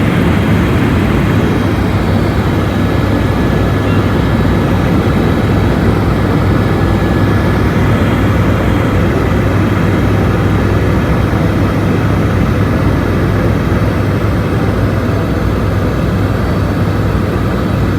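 Steady engine and rotor noise heard inside a helicopter cabin in flight, with a strong low hum underneath.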